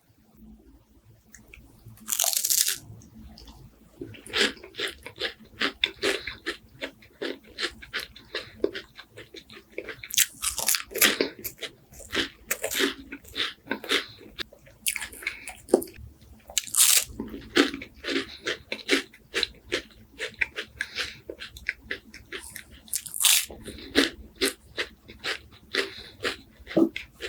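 Close-miked eating of crispy wafers with walnuts. A loud crunching bite comes about two seconds in, then steady crackling chewing follows, with a few louder crunches along the way.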